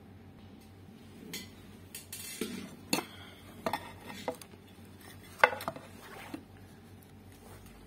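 Scattered clicks and light knocks of an amplifier circuit board and its finned metal heatsink being handled and set against the workbench, the sharpest about five and a half seconds in, over a faint steady low hum.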